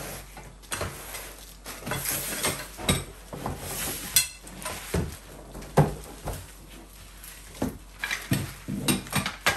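The hollow white metal tubes of a baby jumper's portable stand clinking and knocking against each other, the box and the floor as they are pulled out of the carton, a dozen or so irregular knocks with rustling of cardboard and packaging in between; the loudest knock comes about six seconds in.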